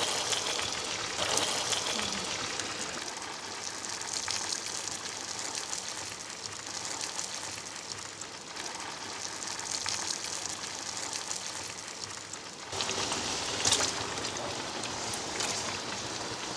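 Potato fries frying in oil in a pan over embers, a steady rain-like sizzle that gets louder about thirteen seconds in.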